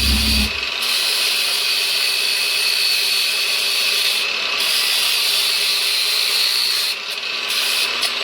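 Variable-speed angle grinder fitted with a sanding disc, running at low speed and sanding a part: a steady hiss with a high whine. The sound dips briefly three times as the disc is eased off the work.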